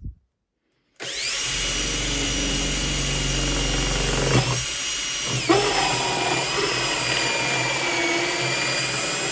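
Makita drill on its fast setting turning an Armeg Acceler8 hole cutter through a metal electrical back box. The motor starts about a second in and runs with a steady whine, its pitch sagging briefly twice midway as the cutter bites into the metal.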